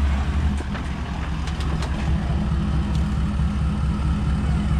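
Toyota Land Cruiser 78 troop carrier's engine running low and steady as the truck crawls over a fallen log, with a few light clicks.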